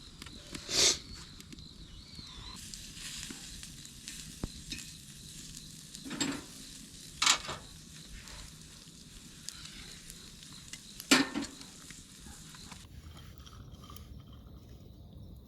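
Horumon (offal) sizzling on a hot iron griddle, a steady hiss that drops away near the end. Four sharp clatters from utensils on the plate cut through it.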